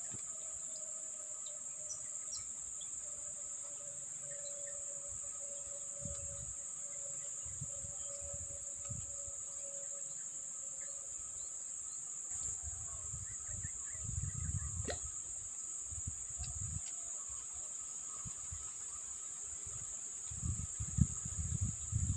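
Steady high-pitched drone of insects, with bouts of low rumble on the microphone and a single sharp click about fifteen seconds in.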